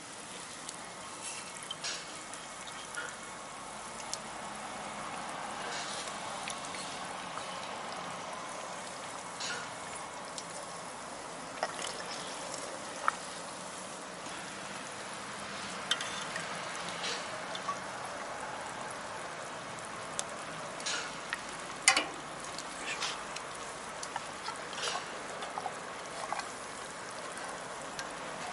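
Beef stew simmering in a pot over a charcoal fire: a steady bubbling hiss with scattered sharp pops and crackles.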